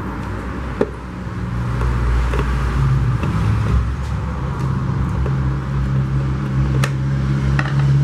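A steady low mechanical hum, with a few sharp clicks as the plastic housing of a blender base is handled.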